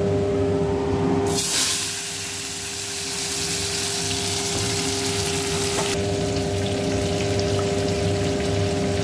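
Cut potatoes and drumsticks (sajne data) dropped into a wok of hot oil with a nigella-seed tempering, sizzling. The sizzle starts suddenly about a second in, stays loud until about six seconds in, then settles to a quieter steady sizzle.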